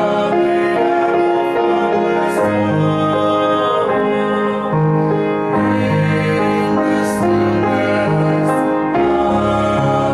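A slow song sung at a microphone over instrumental accompaniment, with long held chords and a bass line stepping to a new note every second or two.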